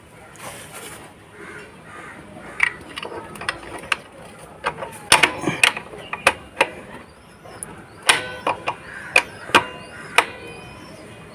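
Irregular sharp metal clicks and clanks, some with a short ringing tone, as a Yamaha Fascino scooter's rear drum brake shoes and return spring are worked into place on the brake plate until they seat.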